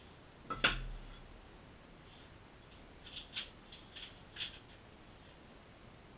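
Tiles and paper being handled on a workbench: one sharp knock with a short low thud about half a second in, as a tile is set down on the table, then four or five short crisp rustles and clicks of paper being handled.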